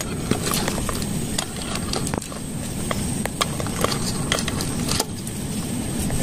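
Pot of food cooking over a gas burner, with irregular crackles and pops over a steady low rumble.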